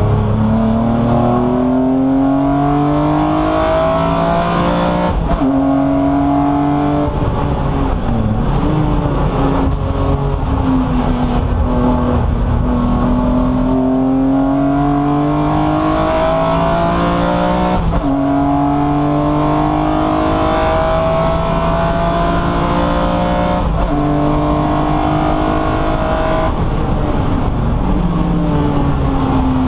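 BMW E36 M3's straight-six race engine heard from inside the cockpit, pulling hard through the gears: the pitch climbs and drops back at each gear change, with a brief easing off and downshift near a third of the way in.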